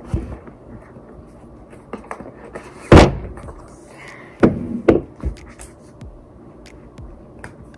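Knocks and thuds of a cardboard iPad Pro box being opened on a table as its lid comes off and is handled: one loud knock about three seconds in, then three softer thuds in quick succession and a few light taps.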